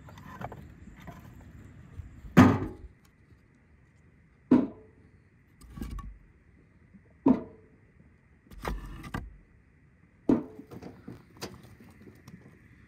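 Pieces of split firewood dropped one by one into a steel wheelbarrow: about six sharp wooden knocks, roughly one every second and a half, one of them a brief clatter of several pieces.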